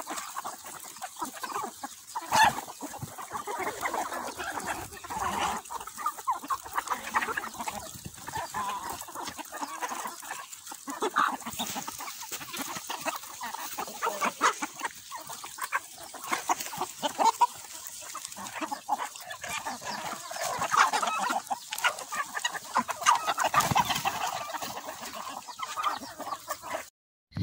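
A flock of chickens clucking while feeding, with many short calls overlapping one another, among turkeys that are pecking at the same scattered feed.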